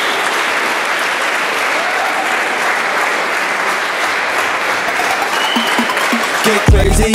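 A crowd applauding steadily. Near the end, loud hip-hop music with a heavy bass beat cuts in.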